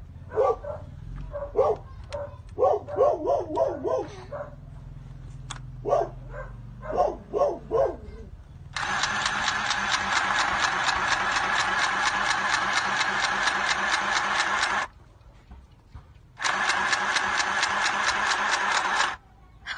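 Small electric sewing machine running in two stretches, about six seconds and then about three, with a fast even clatter of the needle stitching through fabric. Before it starts, a dog gives a series of short yaps.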